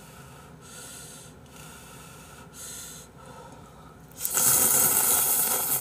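A person slurping instant ramen noodles: a few short, quieter slurps, then one long loud slurp starting about four seconds in.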